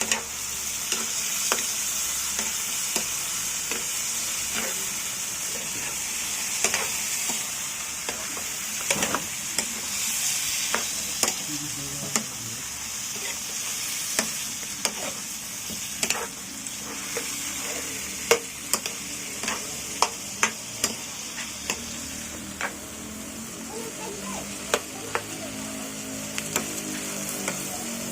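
Chicken wings sizzling in hot oil in a pan with garlic and onion, with the sharp clinks and scrapes of a utensil against the pan as they are stirred. The clinks come thickest in the middle stretch.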